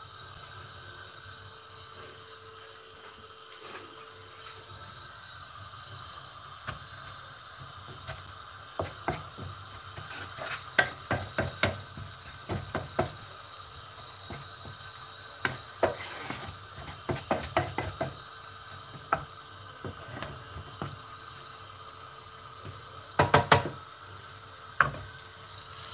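Spatula knocking and scraping against a non-stick frying pan while stirring pineapple pieces in butter and powdered sugar: irregular clusters of sharp taps, the busiest from about a third of the way in and again near the end, over a faint steady hiss.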